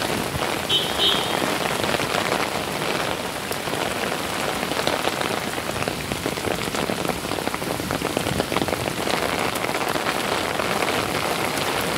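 Heavy rain pouring down onto pavement and a wet road: a steady, dense hiss of falling drops.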